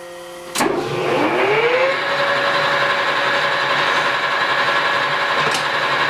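Metal lathe switched on with a click about half a second in; the spindle, carrying a large steel shaft, spins up with a rising whine that levels off into a steady running whine of motor and gearing. A light tick near the end.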